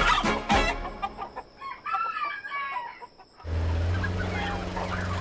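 Music ends, then chickens cluck for a couple of seconds. About three and a half seconds in, a steady low engine hum starts, from a truck loaded with crated chickens, with faint chicken calls over it.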